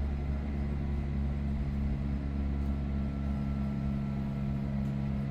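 Electric rack railcar climbing on the Štrba–Štrbské Pleso cog railway: its cogwheel grinding along the rack gives a steady low drone, with no letup.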